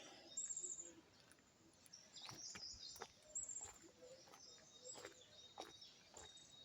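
Faint birdsong: small birds giving a few short, high chirps, with some light clicks in between.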